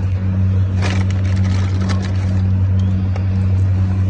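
A steady low mechanical hum, like a motor running, with a few short clicks about a second in and again near two seconds.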